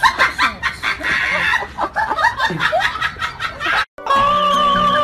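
A person snickering and giggling in quick bursts. The laughter cuts off abruptly about four seconds in, and music with long held notes starts.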